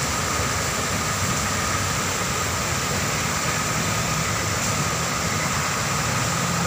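Floodwater pouring over a concrete spillway in a steady rush, with a vehicle engine idling low underneath.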